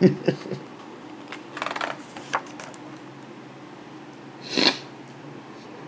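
Pages of a hardcover picture book being handled and turned: small clicks, then paper rustling about two seconds in and a short louder swish near the end.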